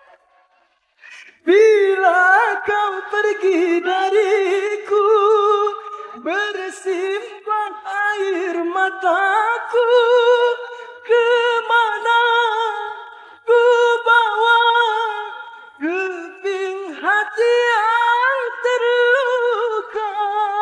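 A man singing a slow love ballad unaccompanied into a handheld microphone, with long held, wavering notes. The voice starts about a second and a half in, after a brief gap.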